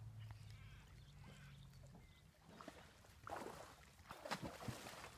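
Horse lying in a muddy pond, stirring and splashing the water in a few uneven bursts in the second half. Before that, a low steady hum.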